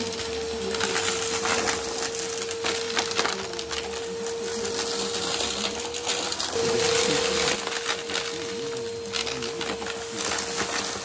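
Bagless upright vacuum cleaner running with a steady motor whine as it sucks up a pile of dumped debris from carpet, small hard bits crunching and rattling up through the machine in a dense stream of clicks. About two-thirds of the way through, the whine steps up in pitch and grows louder for about a second, then settles back.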